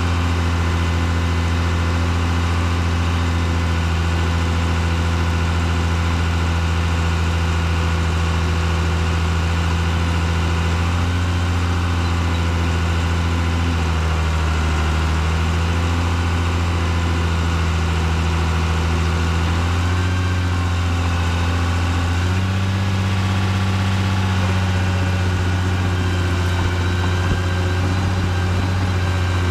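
Caterpillar D3C LGP dozer's diesel engine running steadily while the dozer pushes dirt. The engine note shifts in pitch a few times, stepping up noticeably about two-thirds of the way through.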